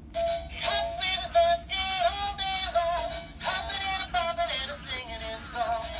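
Gemmy Hip Swinging Easter Bunny animatronic toy playing its song: a singing voice with backing music through its small built-in speaker, the sound cut off above the treble.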